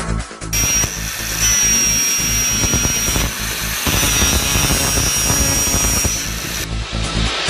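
A small power sander or die grinder spinning a quick-change sanding disc, with a steady high whine over a grinding hiss; the sound breaks off briefly a little before halfway and starts again. Electronic music plays at the start and end.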